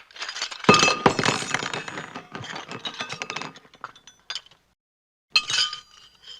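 Dishes and glassware being gathered up, china and glass clinking and clattering against each other in a dense run for about three seconds. A few separate clinks follow, then a short pause, then another quick burst of clinking near the end.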